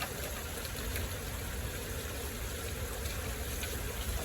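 Rain falling steadily, with a low rumble underneath.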